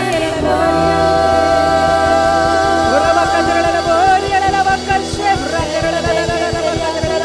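Christian worship song: a voice holds long notes over backing music with a steady beat of about three strokes a second.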